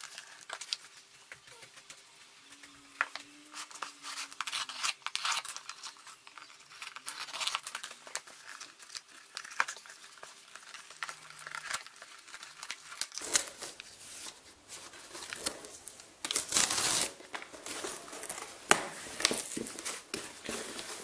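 Cardboard shipping box being torn open by hand: the tear strip is ripped off and the cardboard pulled apart, in a run of uneven rips and crinkling that grows louder about two-thirds of the way in.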